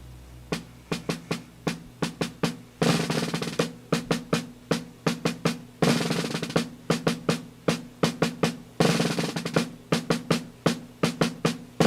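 Percussion-led music: a quick, even run of snare and drum strokes, with a louder, fuller burst about every three seconds.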